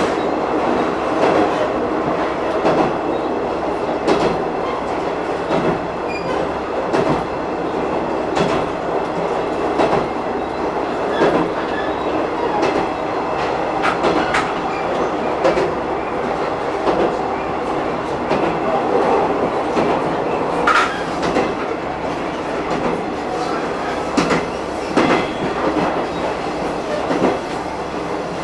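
Diesel railcar running along the track, heard from beside the driving cab: a steady running rumble with wheels clicking over rail joints every few seconds.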